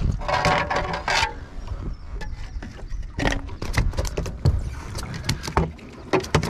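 A crappie flopping on a fiberglass boat deck: irregular knocks and slaps, over a low steady rumble. A short whining tone sounds near the start.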